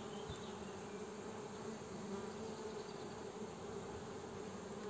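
Honeybees buzzing at an open hive: a steady hum of many bees.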